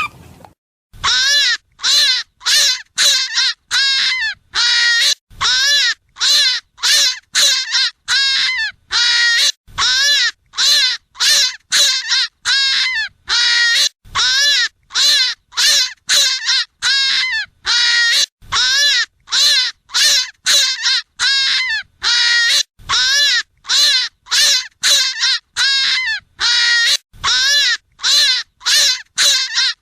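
A hare squealing over and over: short, loud, high-pitched cries, each rising and falling in pitch, about two a second in runs broken by brief pauses. The cries start about a second in. It is a hare call recording meant as a hunting lure.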